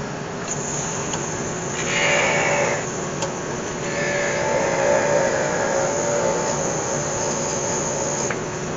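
A parting tool squealing as it cuts through a spinning Iroko spindle on a wood lathe, parting off the turned piece: a short squeal about two seconds in, then a longer one from about four seconds that stops abruptly near the end as the piece comes free, over a steady hum.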